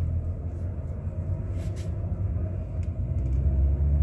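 Low, steady drone of a car's engine and road noise heard from inside the cabin while driving, getting a little louder near the end.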